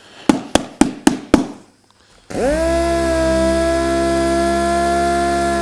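A few quick rubbing strokes on the car's boot lid, about four a second. About two seconds in, a small power tool spins up with a rising whine and then runs at a steady pitch.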